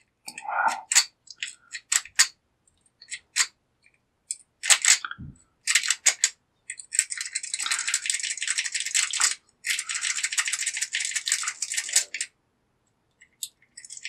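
A rake pick is zipped rapidly in and out of a Hudson padlock's keyway, rattling over the pin tumblers in two quick runs of about two seconds each. Before them come scattered small metal clicks as the tension wrench and pick are set. The zip attempt does not open the lock.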